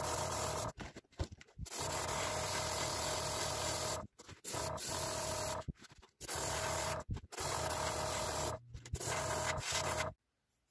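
Gravity-feed airbrush spraying paint, its air hissing in bursts of one to two seconds as the trigger is pressed and released six or seven times, stopping shortly before the end.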